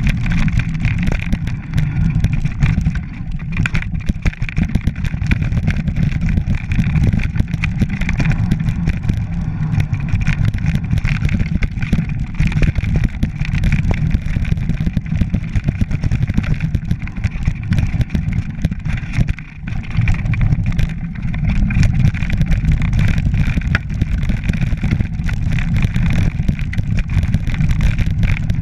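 Mountain bike running down a rough grassy, stony track: a steady rumble of tyres and frame rattling over the ground, with wind buffeting the bike-mounted camera's microphone.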